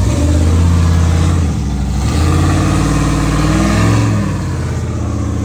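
Rock-crawler buggy's engine revving hard and unevenly as it claws up a steep rock ledge; the pitch dips, climbs again and falls back near the end.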